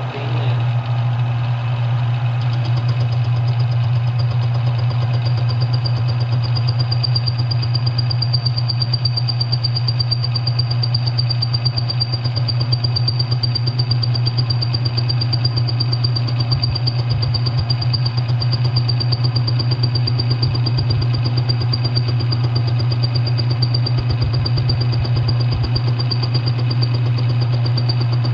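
Smithy CB-1220XL combination lathe-mill running with its chuck spinning, a steady hum, while a facing cut is taken on a piece of metal. A thin, steady high whine joins about two seconds in.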